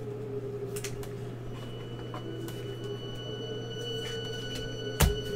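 Steady electrical hum of room tone with faint scattered ticks, and one sharp knock about five seconds in.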